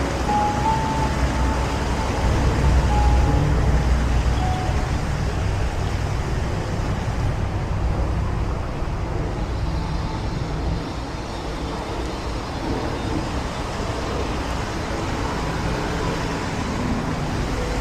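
Steady low rumble with an even hiss over it: outdoor background noise.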